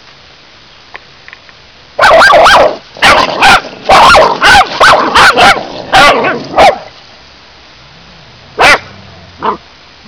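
Cockapoo barking territorially: a rapid volley of about ten loud barks over nearly five seconds, then after a pause two more single barks, the last one softer.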